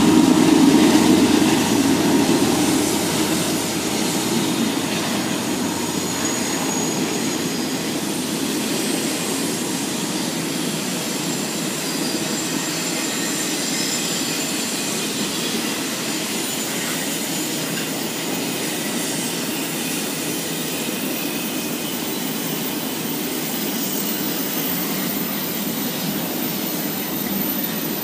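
Canadian Pacific double-stack container freight train passing. A mid-train diesel locomotive (distributed power unit) runs loud at the start and fades over the first few seconds. After that comes the steady noise of the container cars' wheels on the rails, with faint high squeals a few times.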